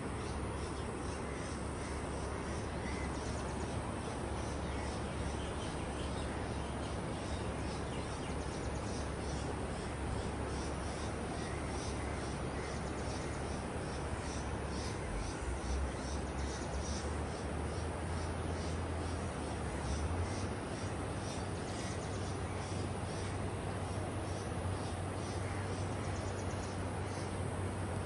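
Outdoor ambience: a steady hiss-like background with a low rumble, and a faint high chirping that repeats about twice a second. The rumble grows a little louder about two-thirds of the way in.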